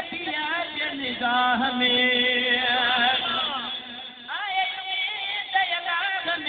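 A man singing a slow, ornamented devotional line into a microphone. He holds one note for about three seconds, then starts a new phrase with a rising slide about four seconds in.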